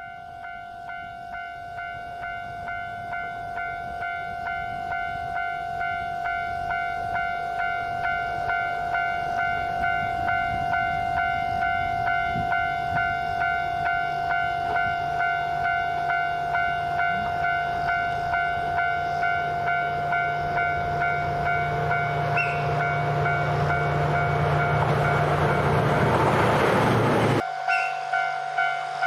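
Japanese level-crossing warning bell ringing in a steady rhythmic pulse while a diesel train's engine grows louder as it approaches. The train passes loudly near the end, then the sound cuts off abruptly and the crossing bell carries on.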